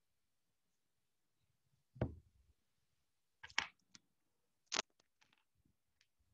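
A few short, scattered knocks and clicks against near silence: a louder, dull knock about two seconds in, then a quick cluster of clicks and one more sharp click a little under a second later.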